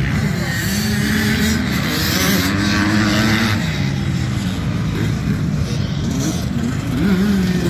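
Several dirt bike engines running and revving as the bikes ride around a dirt track, the engine pitch rising and falling with the throttle.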